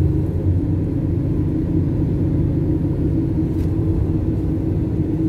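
Steady engine and road rumble heard from inside a Toyota car's cabin as it drives along, with a constant droning tone running through it.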